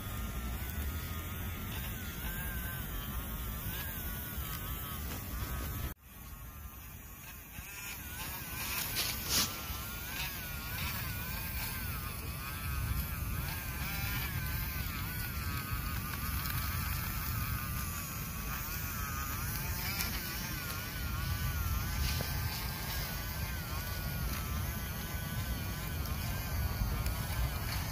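Small electric motor of a homemade toy tractor buzzing and whining as it drives over dirt pulling a loaded trailer, its pitch wavering up and down. The sound cuts off sharply about six seconds in, then builds back up.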